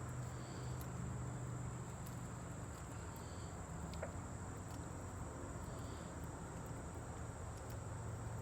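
Insects trilling steadily in a constant high-pitched chorus over a low rumble, with a single sharp click about four seconds in.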